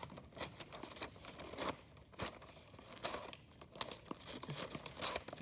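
Scissors cutting through wrapping paper in a run of irregular crisp snips, with the paper crinkling.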